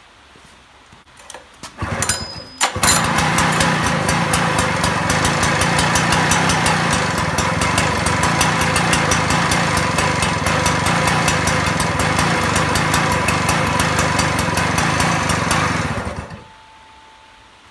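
Robin EC12 small two-stroke engine being pull-started: a couple of short pulls about two seconds in, then it catches and runs steadily for about thirteen seconds before shutting off.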